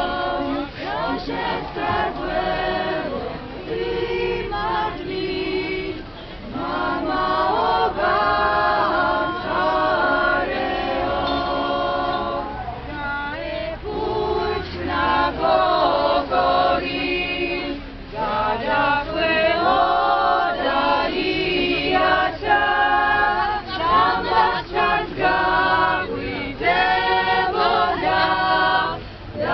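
A crowd of men's and women's voices singing together unaccompanied, a chant-like song with held notes.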